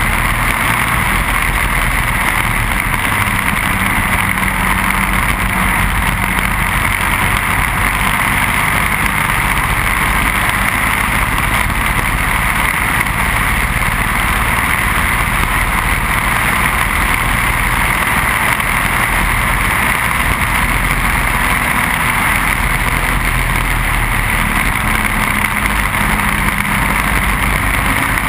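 Heard from on board a racing kart: its Briggs & Stratton Animal single-cylinder four-stroke engine running steadily under load at speed, under a constant rush of wind and road noise.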